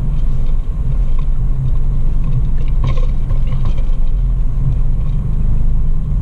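Toyota FJ Cruiser's V6 engine and drivetrain running at a crawl on a dirt trail, heard from inside the cabin as a steady low drone. A few light knocks come about three seconds in.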